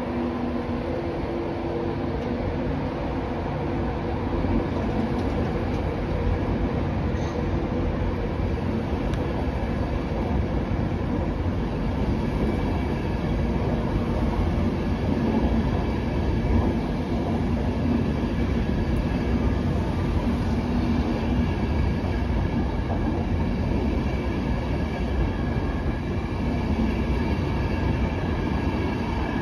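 LNER InterCity 225 train, a Class 91 electric locomotive hauling Mark 4 coaches, pulling out of the station. Its coaches roll past at low speed, giving a steady rumble of wheels on rail with a faint steady hum above it.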